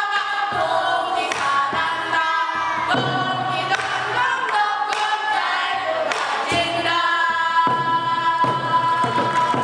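A group of children singing a Korean folk song together, accompanied by strokes on a buk barrel drum. The voices hold one long note near the end.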